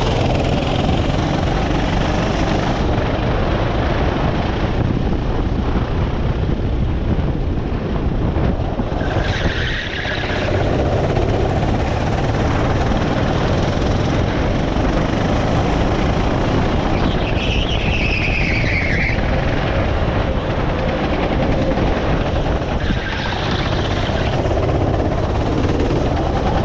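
Go-kart engine running hard under throttle, heard from onboard the kart, a steady loud drone throughout. Short high squeals cut through it about nine seconds in, again around seventeen to nineteen seconds, and near twenty-three seconds.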